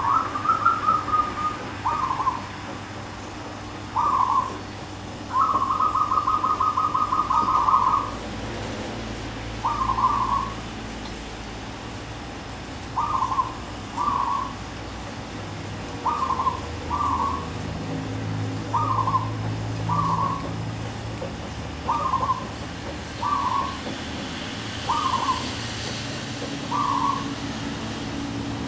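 Caged decoy zebra dove cooing: short soft coo phrases every second or two, with one long, rapid rolling series of coos about five seconds in, lasting nearly three seconds.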